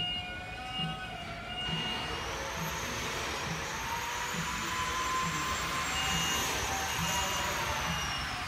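Footsteps thud about every three-quarters of a second under a faint steady hum. About two seconds in, a loud rushing, whining noise starts up, its pitch slowly rising and then easing off.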